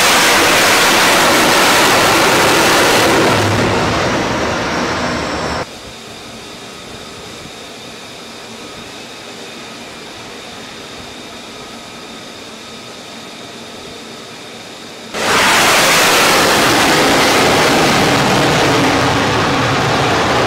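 F-35C fighter's jet engine during a low pass over a carrier deck: a loud rushing jet noise that cuts off abruptly about five and a half seconds in, leaving a quieter steady rush with faint whistling tones, until a second loud jet noise starts suddenly about fifteen seconds in.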